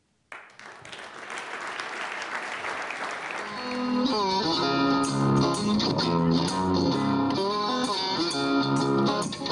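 Audience applauding, the clapping building up over the first few seconds; about four seconds in, instrumental music with a rhythmic melody comes in and takes over.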